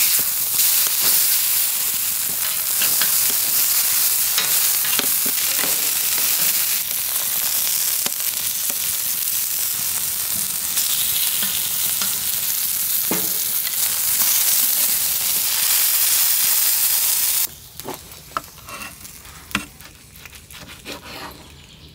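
Beef steak and vegetables sizzling hard on the hot griddle plate of a wood-fired fire barrel, with scattered clicks from tongs moving the food. About three-quarters of the way through the sizzle cuts off suddenly, giving way to a much quieter stretch of a knife and tongs clicking as the steak is cut on a wooden board.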